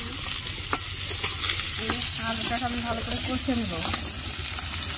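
Bata fish frying in hot oil in a pan, sizzling steadily, with sharp clicks of a spatula stirring and turning it.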